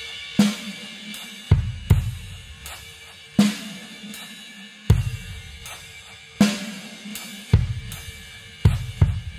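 Background music led by a slow drum-kit beat: bass drum and snare alternating about every second and a half, with a wash of cymbals and hi-hat.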